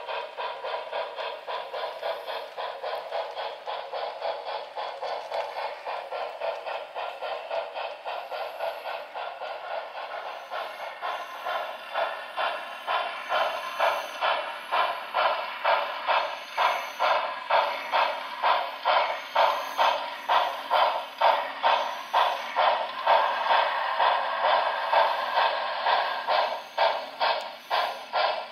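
Model steam locomotive's sound decoder chuffing through its small onboard speaker, about two beats a second. The chuff gets louder from about ten seconds in as the engine approaches.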